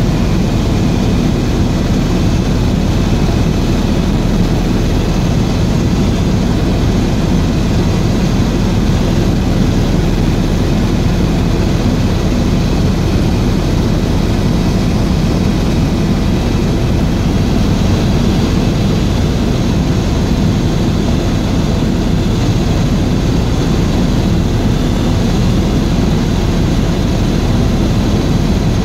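Helicopter running steadily, a loud, unchanging drone.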